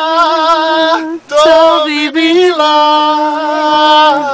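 A solo voice sings long, held notes of a slow song with a wavering vibrato, breaking off briefly for a breath about a second in.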